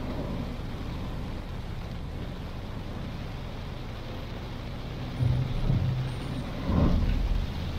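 Car driving in heavy rain: a steady hiss of rain and road noise, with two low rumbling thumps in the last third.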